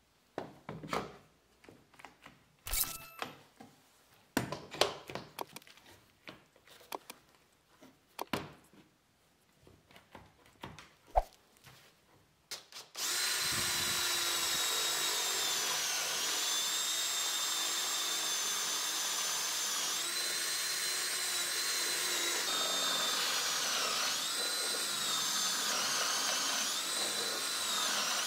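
One-handed quick-release bar clamps clicking as they are squeezed tight, with a few knocks, then about 13 seconds in a cordless drill starts and runs steadily into the wood. Its whine sags and recovers several times as the bit bites.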